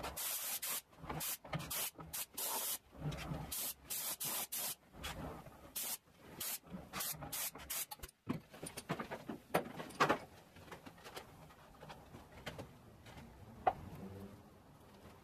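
Gravity-feed compressed-air spray gun spraying finish in many short hissing bursts, each starting and stopping with a trigger pull, for roughly the first half. After that only low background noise with a few light knocks.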